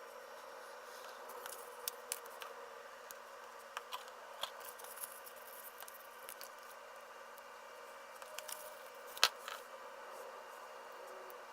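Faint handling sounds of stickers being peeled and pressed onto a small vinyl toy figure: scattered light clicks and ticks, with one sharper click about nine seconds in.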